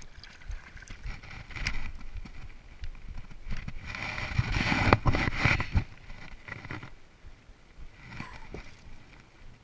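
Handling noise close to the microphone as a hand brushes and bumps the camera: uneven rubbing with a few sharp clicks, loudest about four to six seconds in, then quieter.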